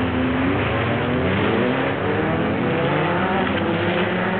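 Several ice-racing cars' engines revving hard at once, their overlapping pitches rising and falling as the cars accelerate around the track.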